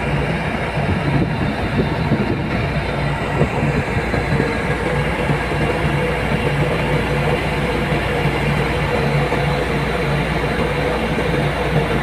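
Machine engine running steadily, a constant loud drone with a steady hum that does not change.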